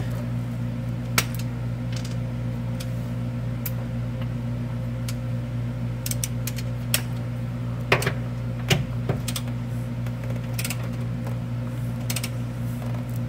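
Irregular metallic clicks of a ratcheting torque wrench being worked on a subframe bolt, over a steady low hum.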